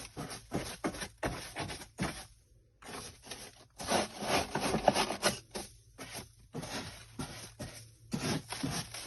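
Loose cat litter being scraped and shaken out of the litter box, with gritty scraping and rattling in irregular bursts and a short pause about two and a half seconds in.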